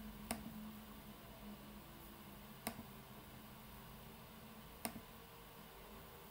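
Three sharp computer mouse clicks, about two seconds apart, over a faint room hum.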